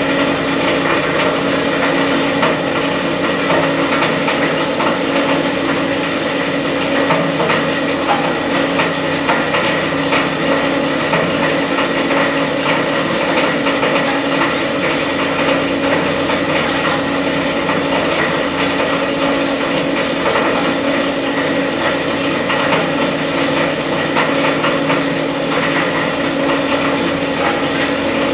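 SEM Model 2-SSD solid-state drive disintegrator running in its timed shutdown, the cutter spinning on with no new material fed in to finish off residual thumb-drive pieces in the cutting chamber. A steady machine hum with a fine, continuous crackle of small ticks.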